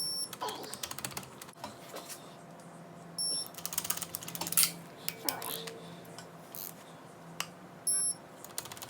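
Torque wrench ratcheting in runs of quick clicks as the cylinder head stud nuts of a Subaru EJ25 engine are run down on the first 30 ft-lb pass, with a few single sharp clicks. Short high beeps sound three times.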